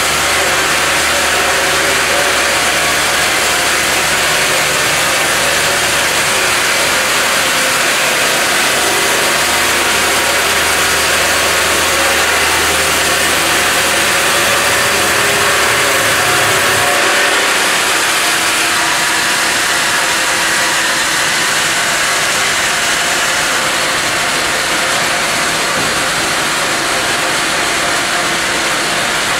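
CD horizontal bandsaw running as it saws a log, a loud steady hiss of the band blade over the hum of its motors. The low hum drops away about 17 seconds in while the sawing noise carries on.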